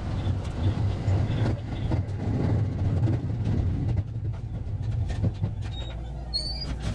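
JR West 223 series electric train running on the rails, a steady low rumble with scattered wheel-on-rail clicks. A few short high chirps come near the end.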